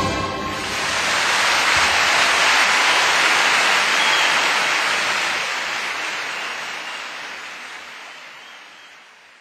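A rushing noise without any clear pitch swells over the first couple of seconds, holds, then fades away steadily.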